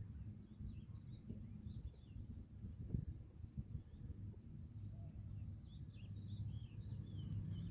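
Faint, scattered chirps of small birds over a low steady rumble of outdoor background noise.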